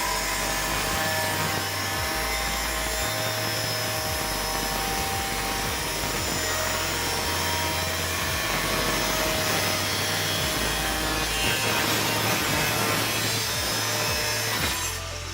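INGCO angle grinder's cutting disc cutting through aluminium: a loud, steady grinding noise that cuts off near the end. Background music with a bass line runs underneath.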